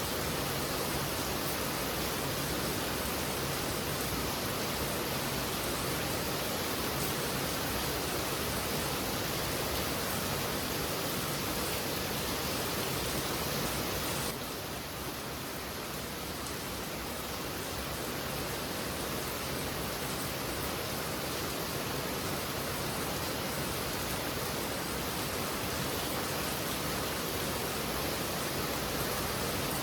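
Heavy rain falling as a steady, dense hiss. About halfway through it drops slightly in level and sounds a little duller, then gradually builds back.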